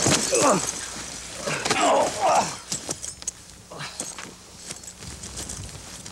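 Men grunting and yelling in a staged fistfight over the first couple of seconds, followed by quieter scuffling with a few thuds and knocks as bodies hit the ground.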